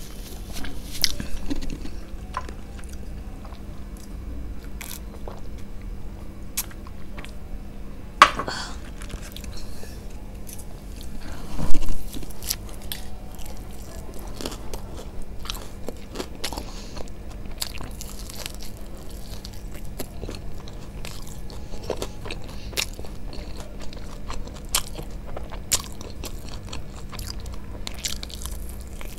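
Close-miked eating: biting into and chewing fried chicken lollipops, with many small sharp crackling clicks, and two louder sudden sounds about eight and twelve seconds in.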